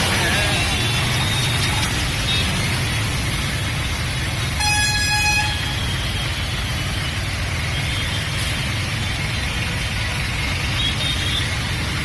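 Steady rush of churning floodwater mixed with road traffic, with a vehicle horn honking once for about a second near the middle.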